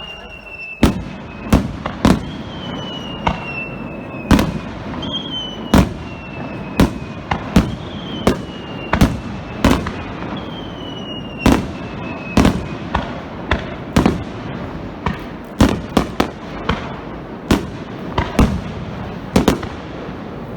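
Starmine fireworks barrage: a rapid string of aerial shell bangs, about one or two a second, with crackling between them. Over the first two thirds, five long whistles from whistling shells each fall slightly in pitch.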